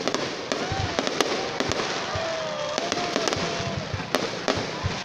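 Fireworks display: aerial shells bursting in a rapid string of bangs and pops over continuous crackling, with a wavering tone through the middle.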